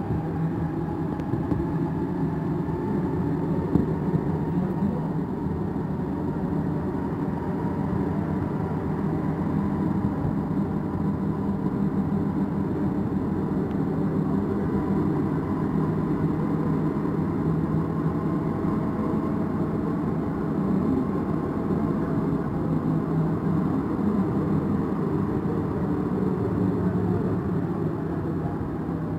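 Santiago Metro NS-16 rubber-tyred train running: a steady rumble with a faint motor whine above it, heard from on board.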